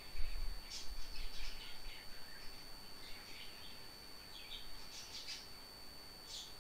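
Birds chirping in the background: short high chirps scattered through, over a faint steady high-pitched electrical whine. A low muffled bump near the start is the loudest sound.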